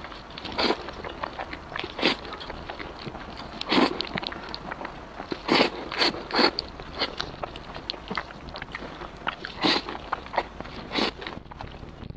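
A person slurping wide noodles coated in sesame sauce, with a sharp sucking slurp every second or two and wet chewing and small mouth clicks between.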